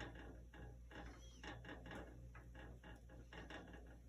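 Faint, irregular light clicks and taps of a bandsaw blade and the saw's metal parts being handled as the loose blade is worked onto the wheels, over a low steady hum.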